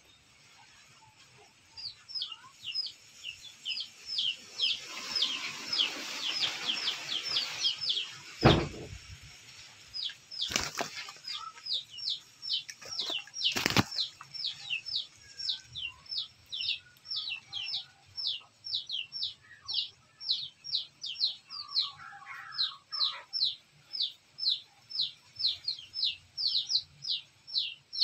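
Chickens fighting, a hen against a small rooster: a rustling scuffle of flapping wings with a few sharp knocks midway through. Over it a bird chirps on and on, with short falling chirps about two or three a second.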